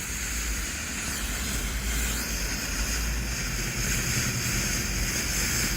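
A 500-gram fountain firework burning with a steady hiss.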